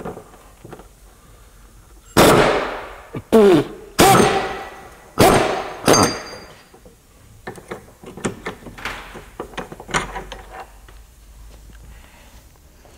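Loud metallic clunks and clangs during removal of a BMW E46's rear subframe mounting bolts: five sharp hits between about two and six seconds in, each ringing out briefly, then lighter clicks and knocks.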